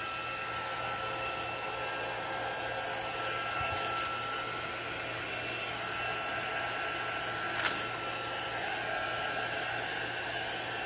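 Small handheld craft heat tool blowing steadily with a faint whine, drying fresh chalk paint on wooden beads. One light click about three-quarters of the way through.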